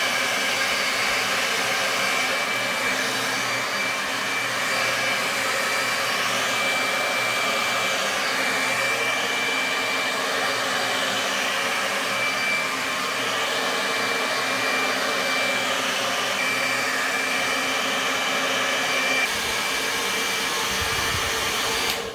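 Handheld hair dryer running steadily, blowing air onto hair held on a round brush: an even rush of air with a thin high motor whine at one pitch. It is switched off abruptly at the very end.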